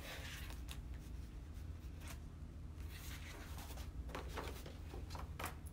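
Faint handling noises: scattered short rustles and scrapes over a steady low hum.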